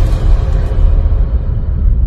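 Cinematic intro sound design: music over a deep, continuous rumble, its higher part fading away.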